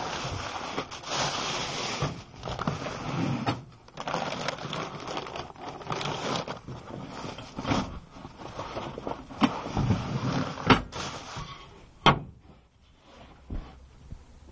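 Handling noise of a phone camera rubbing and scraping against fabric and plastic in irregular bursts, with several sharp clicks and two loud knocks about two-thirds of the way through.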